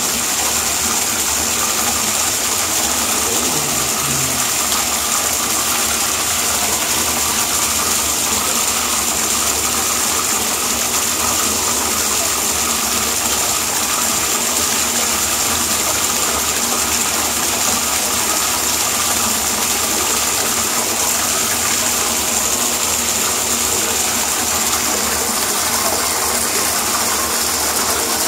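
Bathtub tap running steadily, water gushing into the tub without a break.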